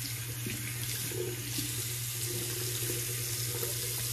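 Water running steadily from a bathroom tap into the sink while the face is rinsed with handfuls of water after a shave.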